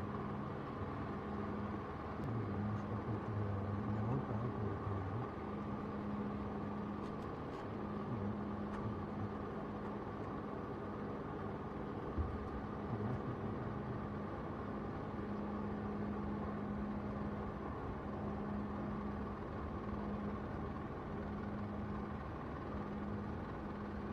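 Airbus A330neo's Rolls-Royce Trent 7000 turbofan engines running at taxi idle as the airliner rolls slowly along the runway, a steady low hum.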